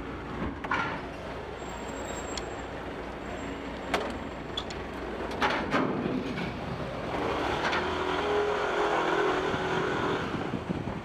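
Motorcycle and truck engines running on a ferry's car deck as the vehicles drive off, with a few sharp knocks. About seven seconds in, a louder engine sound with a steady hum comes up and eases off near the end.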